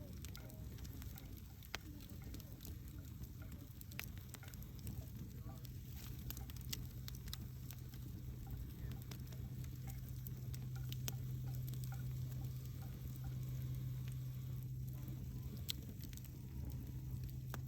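Wood campfire burning, with irregular sharp crackles and pops from the burning logs over a steady low rumble.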